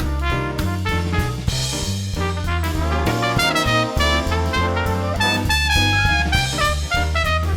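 Background music: upbeat swing jazz with brass lead over a walking bass.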